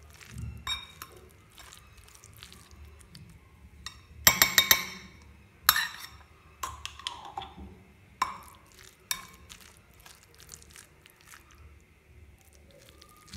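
Spoon clinking and scraping against a glass bowl while stirring a thick chicken, cabbage and mayonnaise filling. It is a string of light clicks, with a quick run of sharper, ringing clinks about four seconds in and a few more after.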